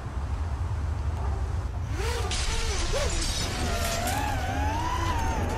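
Logo-intro sound effects: a steady deep rumble, a shattering crash about two seconds in, then a wavering tone that rises and falls.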